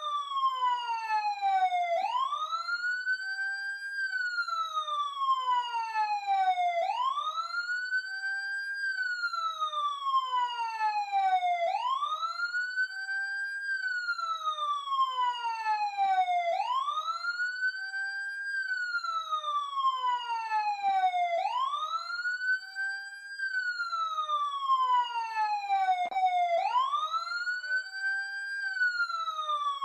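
Emergency siren wailing: each cycle rises quickly in pitch, holds briefly at the top, then falls slowly, repeating about every five seconds.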